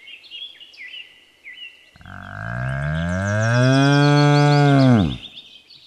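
A bull mooing once: a single deep call about three seconds long that starts about two seconds in, rises, then falls away. Small birds chirp throughout.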